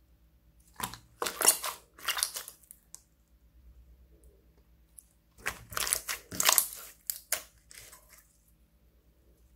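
Clear glitter slime being stretched and folded by hand, giving rapid runs of small pops and crackles in two bouts a few seconds apart.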